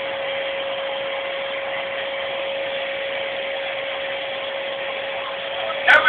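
Vacuum cleaner running steadily: a constant whine over a rushing air noise. A sharp knock comes just before the end.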